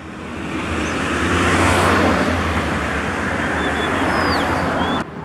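Road vehicle running close by, its engine and tyre noise swelling over the first second or so, then holding steady before cutting off suddenly near the end. A few faint high chirps sound over it late on.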